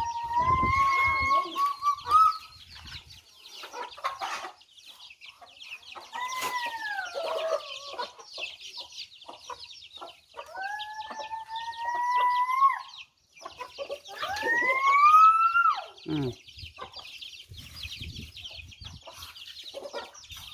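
Roosters crowing four times, each crow about two seconds long, over a constant high peeping of chicks and the clucking of hens pecking at feed.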